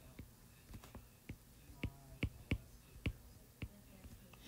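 Stylus tapping and ticking on a tablet screen while handwriting: about nine faint, short, irregular clicks.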